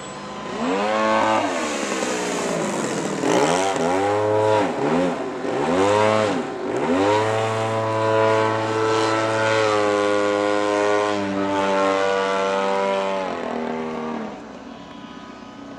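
Gasoline engine (a B60 gasser) of an Extreme Flight Extra 300 RC aerobatic plane in flight, its pitch rising and falling several times as the throttle is worked. About halfway through it holds a steady high throttle for several seconds, then drops back and quiets near the end.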